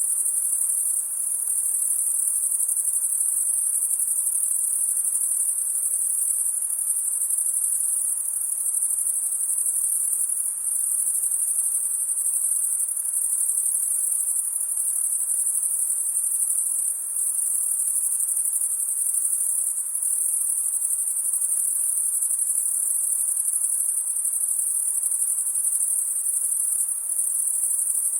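A dense, steady, high-pitched chorus of crickets chirping on a summer night.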